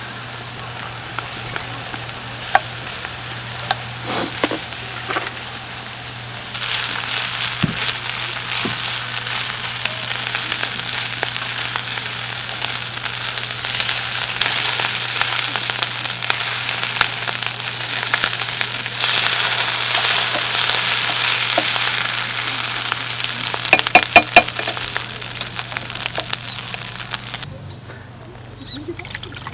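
Food sizzling in a hot pan, the sizzle growing louder about six seconds in, with a few sharp clicks like a utensil against the pan near the end before it cuts off suddenly.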